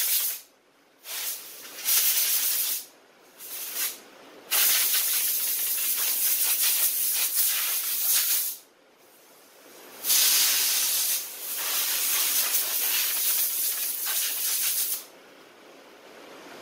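Compressed-air blow gun hissing as it blows dust out of a lawn tractor's paper air filter cartridge. It comes in a few short blasts, then two long blasts of about four and five seconds, stopping near the end.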